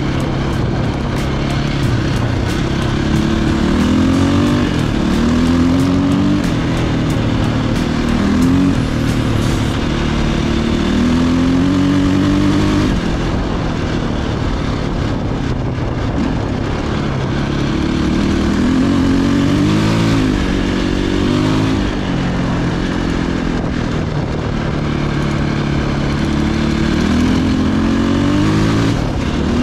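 Four-stroke 450 enduro dirt bike engine under way, its pitch climbing and dropping again several times as the throttle is opened and rolled off.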